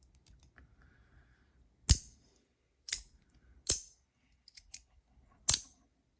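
A handheld fidget toy being snapped and clicked: four loud, sharp clicks at uneven intervals, with a couple of lighter ticks between the last two.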